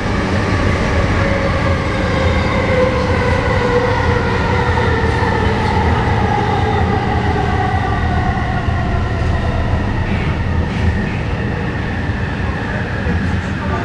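SkyTrain car running on the elevated guideway, heard from on board: a steady rumble of wheels on rail, with the linear induction motor's whine gliding slowly down in pitch through the middle as the train slows into a station.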